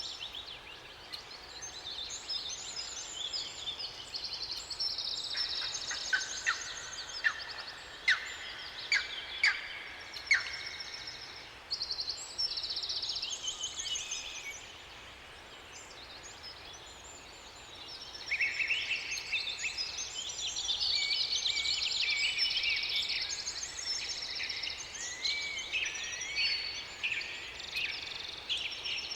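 Several songbirds singing at once in a forest, overlapping high chirps and trills, with a run of sharp, loud short notes about six to ten seconds in and a quieter gap around fifteen seconds before the chorus picks up again.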